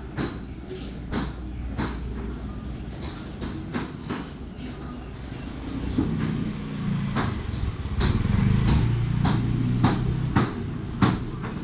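Metal being struck repeatedly in runs of about two blows a second, each blow ringing with a high metallic tone. A low rumble builds underneath in the second half.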